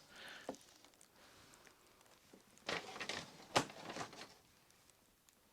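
Faint rustling of plastic parts bags and small clicks of Lego pieces being handled, with a sharper click about three and a half seconds in.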